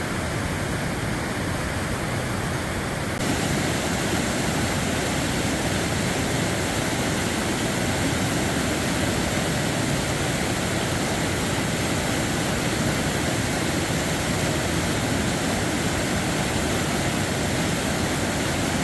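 Steady rush of a fast-flowing mountain creek at a trail crossing, with a slight shift in the sound about three seconds in.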